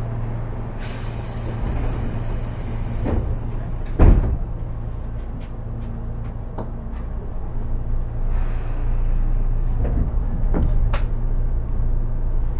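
Inside a Tobu 10030 series commuter train car: a hiss of air lasting about three seconds, then one heavy thud as the air-operated doors shut, over a steady low hum. The noise grows louder again near the end.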